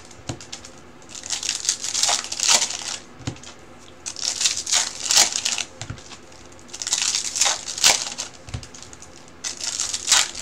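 Foil trading-card packs being torn open and their wrappers crinkled, one pack after another. There are about four bursts of crackling, roughly every two and a half seconds, with a soft knock between them.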